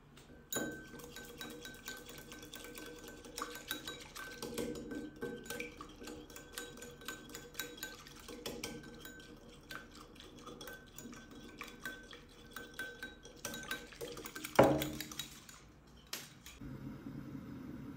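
Wire whisk beating an egg yolk mixture in a glass bowl: rapid, uneven clinking of the whisk wires against the glass, with the bowl ringing faintly. A single louder knock comes near the end.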